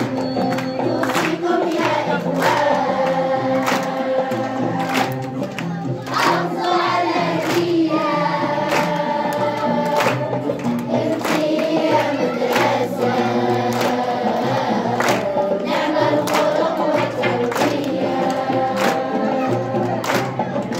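Song sung by a chorus of voices over music with a steady percussion beat.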